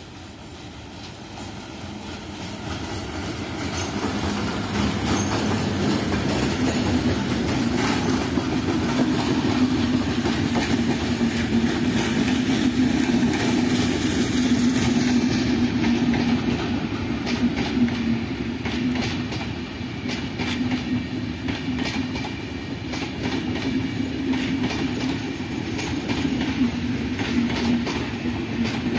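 Bangladesh Railway passenger train, a diesel locomotive hauling Intercity coaches, approaching and growing louder over the first few seconds. Its coaches then pass close by with a steady rumble and a rapid clickety-clack of wheels over the rail joints.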